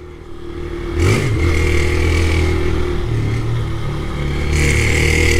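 Two-stroke Caloi Mobilete moped engine. It revs up about a second in, then runs steadily while the moped is ridden.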